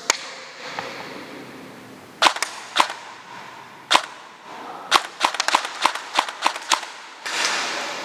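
Airsoft guns firing: sharp single shots spaced out at first, then a quick, irregular string of about ten shots. A short rush of noise comes near the end.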